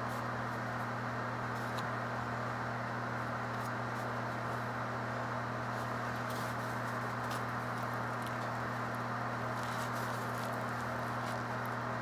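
Steady low hum of a running appliance, with a few faint crackles and rustles as a soft bread bun is picked up and torn open by hand.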